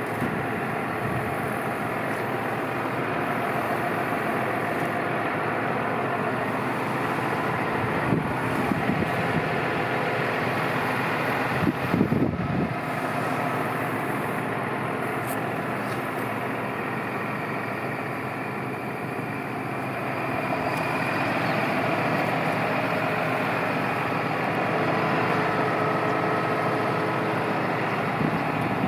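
Tractor engine running steadily, with a few gusts of wind buffeting the microphone.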